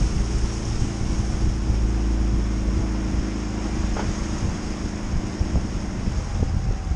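Small aluminum fishing boat running under motor power, with the outboard engine's steady hum and water rushing along the hull.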